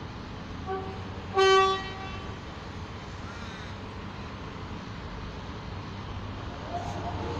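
X'Trapolis suburban electric train's horn: a faint short pip, then a single louder toot of about half a second. Near the end a rising whine starts as the train's traction motors begin to pull away.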